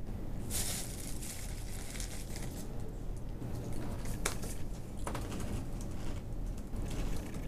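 Steady low hum with a few faint rustles and clicks: a rustle about half a second in, and two sharp clicks around four and five seconds in.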